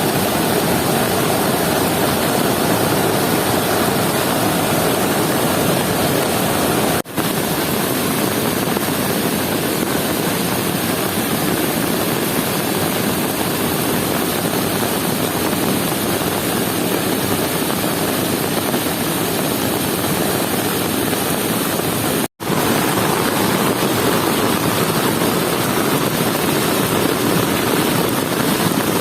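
Steady, loud rush of water from a rain-swollen river in flood, breaking off briefly twice.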